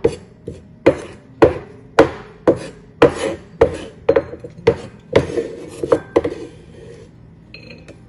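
Wide-bladed kitchen knife chopping minced garlic on a wooden cutting board, a sharp knock about twice a second. The knocks stop about a second and a half before the end, as the blade gathers the garlic.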